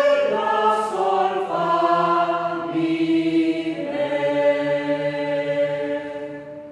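A small group of voices singing together a cappella, holding long notes in harmony that shift to new pitches every second or so, then fading out near the end.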